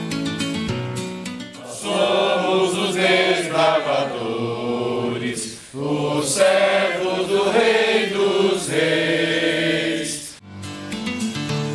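A group of people singing together in two long phrases, taking over from instrumental background music about two seconds in; the background music comes back near the end.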